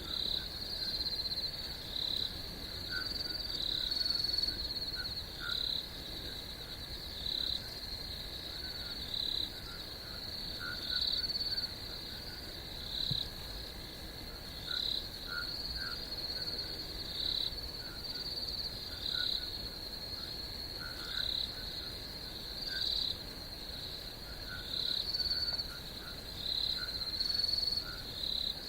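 Night chorus of crickets and frogs: a steady high insect trill with louder chirps repeating every second or two, and scattered short, lower calls.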